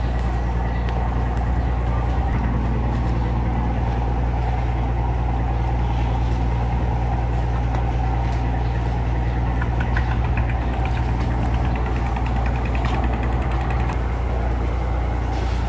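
Fishing boat's engine idling: a steady, deep, even drone.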